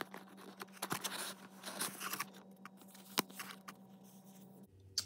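Paper instruction leaflet being pulled out from under a cardboard toy-box insert and unfolded: faint rustling and scraping of paper and card with a few sharp clicks, the loudest about three seconds in.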